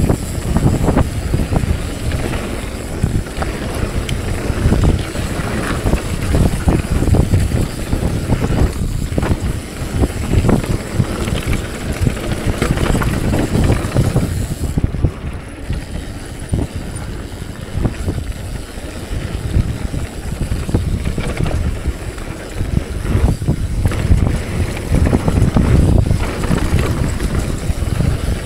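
Mountain bike ridden down a rough trail: steady tyre rumble over the ground, frequent knocks and rattles from the bike, and wind buffeting the microphone.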